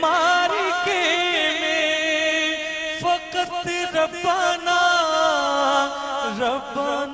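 Male singer holding a long, wavering melismatic vocal phrase of a devotional Urdu kalaam over musical accompaniment, with a few sharp percussive strikes about midway.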